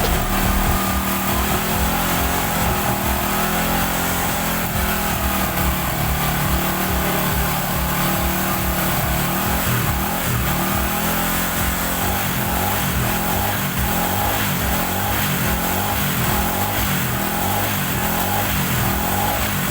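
Bajaj Boxer 150 motorcycle engine running after a connecting-rod and crank-bearing replacement. About twelve seconds in, its note changes to an even pulsing beat.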